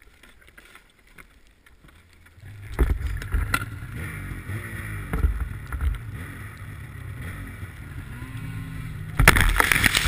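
Snowmobile engine opening up about two and a half seconds in and running under throttle through deep powder, its revs rising and falling, with a few hard knocks. Near the end comes a loud rushing, buffeting burst as snow covers the camera.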